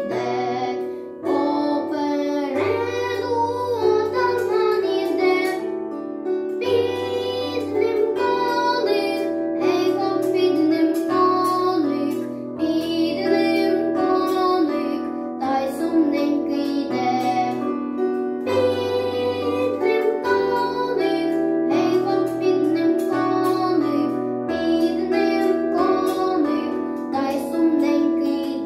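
A boy singing a Ukrainian song with instrumental accompaniment, steady bass notes under the melody.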